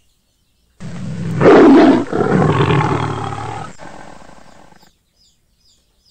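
A big cat roaring: one loud roar starts about a second in, swells a second time and fades out over about four seconds.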